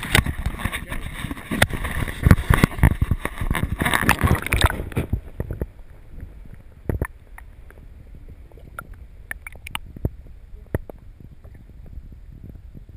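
Water splashing and handling noise on a GoPro's waterproof housing as it is dipped into a river; about five seconds in the sound turns muffled and dull as the camera goes under, leaving scattered small clicks and knocks.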